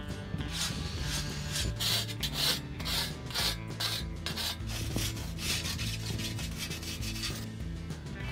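Hand file rasping along the edge of a copper strap cut lengthways from copper pipe, about two strokes a second, stopping near the end, with background music underneath.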